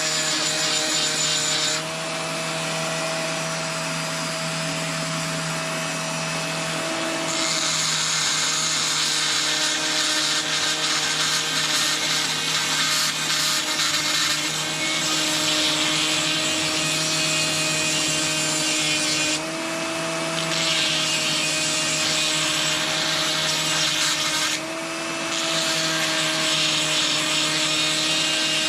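Electric grinder running steadily while grinding down the steel jaws of blacksmith tongs, the grinding hiss stopping and restarting in several passes, with brief breaks about two seconds in, around two-thirds of the way through, and again near the end. The motor's pitch drops a little when the metal is pressed to the wheel and rises when it is lifted off.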